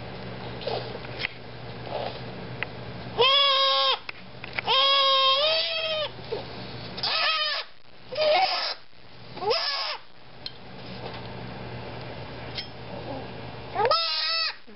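Goat kid bleating in distress as a hot disbudding iron burns its horn bud. There are six loud cries, the second the longest.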